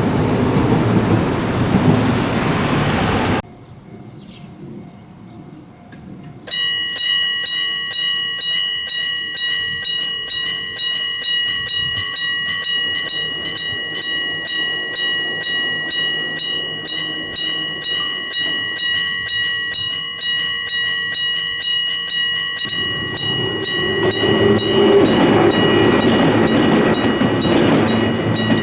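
Train running past, cut off abruptly about three seconds in. After a few quiet seconds a level-crossing electric bell starts ringing, a rapid continuous ringing with a pulsing beat of about two to three a second. Near the end an approaching train's rumble rises under the bell.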